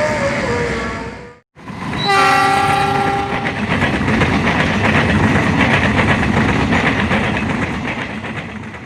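Passing train sounding its horn: a horn falling in pitch, then after a brief gap a fresh horn blast about two seconds in lasting over a second. Loud rushing and clatter of wheels on rails follow as the train runs through, fading near the end.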